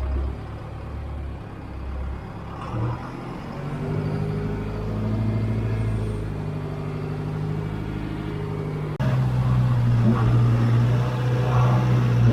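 John Deere 410 backhoe's engine running under load, picking up speed about three seconds in and holding at higher revs; the sound jumps suddenly louder about nine seconds in.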